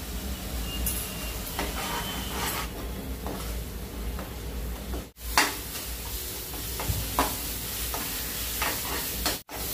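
Thick onion-tomato and spice masala sizzling as it fries in mustard oil in a non-stick kadhai, while a steel spoon stirs and scrapes it around the pan. The sound drops out briefly twice.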